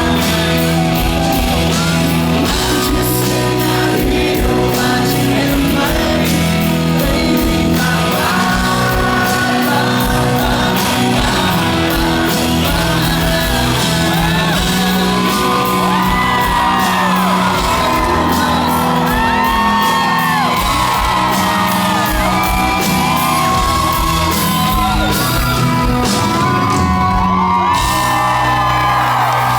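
Live country band with singing, heard in a large hall, with shouts and whoops from the crowd.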